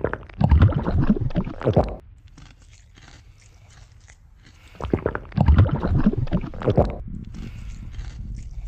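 Two bursts of crunching, squishing body sound effects for a swollen, overfed belly, the first right at the start and the second about five seconds in, each lasting about two seconds, with a low rumble between them.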